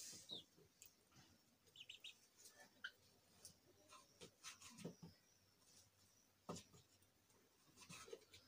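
Near silence, broken by scattered faint clicks and scrapes of a knife cutting a chapati on a plate, and a few faint short chirps of chickens.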